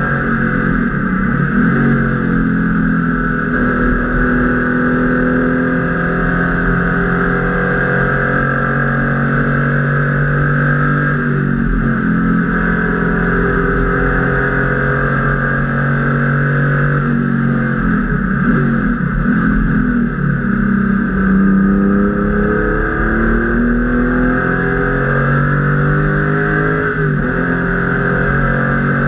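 Porsche 993 RS Club Sport's air-cooled flat-six engine running hard, heard from inside the cockpit. Its pitch climbs steadily and then shifts abruptly about four times as the car works through the gears. Under it is a steady rumble of road and wind noise.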